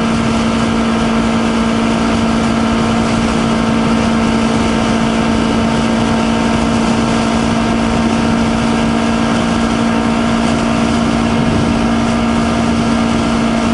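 2020 Honda CBR250RR's parallel-twin engine running at steady revs while being ridden, one constant engine note over a steady rush of wind.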